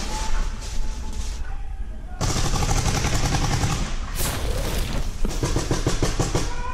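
Paintball markers firing rapid strings of shots, thickest in the last second and a half, as the opening music fades out in the first two seconds.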